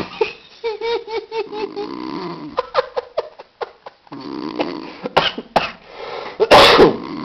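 A man snoring in his sleep, rough and rasping, with one snore at the start and another about four seconds in. A run of short pitched pulses, about four a second, comes early on, and a loud sudden burst comes near the end.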